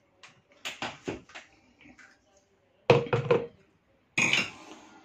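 A stick blender being handled against hard plastic jugs: a few short, sharp knocks and clatters in three small clusters, the loudest about three seconds in.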